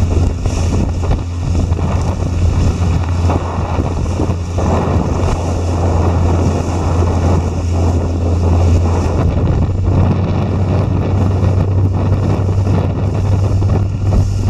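An inflatable chase boat running at speed, with its motor as a steady low drone, wind buffeting the microphone, and water rushing past the hull.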